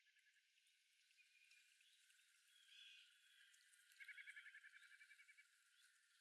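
Faint forest ambience with several birds calling: short scattered calls, and a rapid trill of about ten pulses a second for over a second near the middle.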